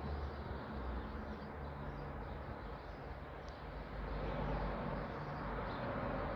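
Electro-mechanical sirens coasting down after a test alarm: a faint low hum under steady outdoor background noise.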